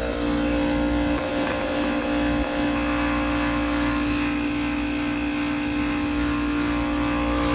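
Refrigerant recovery machine running with a steady hum, pulling R-422B refrigerant out of the system.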